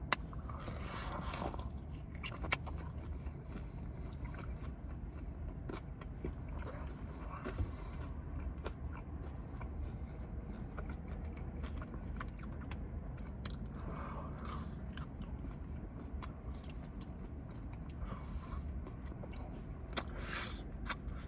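Close-up chewing and biting of food, with scattered wet mouth clicks and smacks: a person eating wings and fries.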